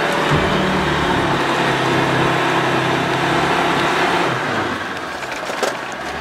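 Land Rover Defender 110 engine working hard under load up a sand dune, with a dense rushing noise over it, then easing off about four seconds in as the vehicle comes over the crest.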